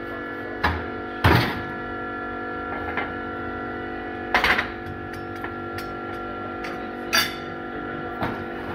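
Steel press tooling and a stainless blade blank being handled and set onto a hydraulic press bed: several sharp metal knocks and clunks, the loudest about a second in, over a steady hum.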